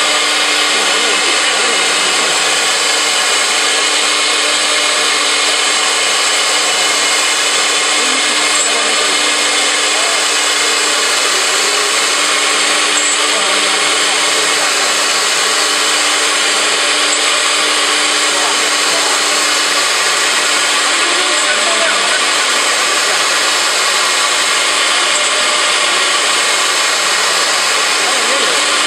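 A four-spindle CNC router's spindle running at speed with its bit cutting a wood panel: a steady, unbroken machining noise of the motor and the rasp of the bit in the wood.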